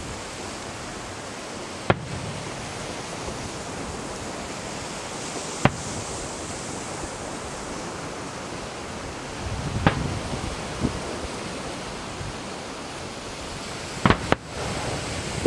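Fireworks shells bursting: about six sharp cracks a few seconds apart, two close together near the end, over a steady hiss.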